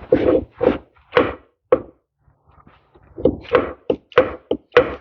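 Repeated hammer blows on a stuck tractor part that will not come apart: about four strikes, a pause of about a second, then a quicker run of about six.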